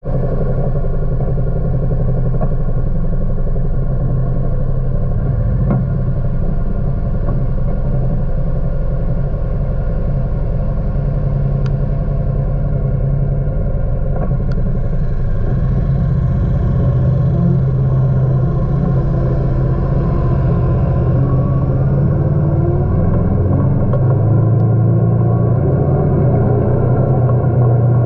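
Kawasaki Teryx4 side-by-side's V-twin engine running continuously while driving, with a brief rise in engine pitch a little past the middle and slightly louder in the second half.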